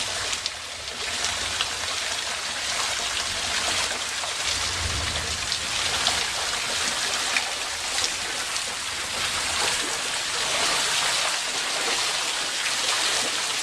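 Heavy thunderstorm downpour: a steady hiss of rain with many individual drops ticking close by.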